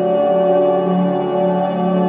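Background music of steady, sustained chords.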